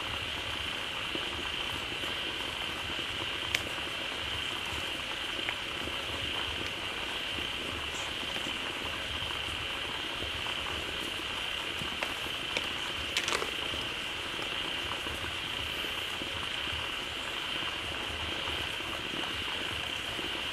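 A dense chorus of many frogs calling together at a pond, a steady unbroken din with a bright high band. A few faint clicks stand out from it now and then.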